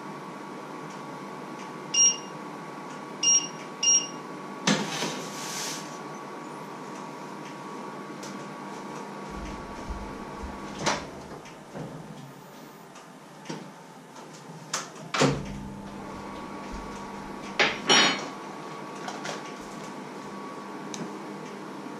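Touch controls of a glass-top electric hob beeping three times in quick succession as settings are pressed, then a steady electrical hum. Several sharp knocks and clacks follow, with another beep near the end.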